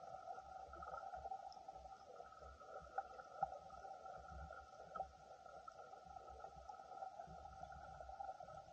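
Faint underwater sound: a steady two-tone hum with a low rumble beneath it and a few soft clicks.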